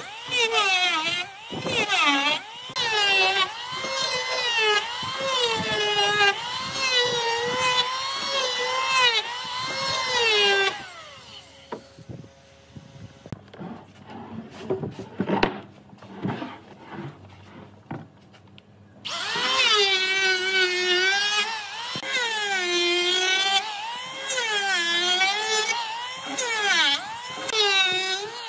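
A handheld power tool working wood, its high whine sagging in pitch each time it bites and rising again as it is eased off, about once a second. It stops for several seconds in the middle, where there are a few scattered knocks, then runs again.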